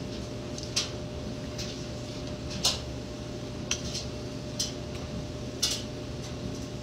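Someone chewing with their mouth close to the microphone, about six sharp lip smacks and mouth clicks spaced a second or so apart, over a steady background hum.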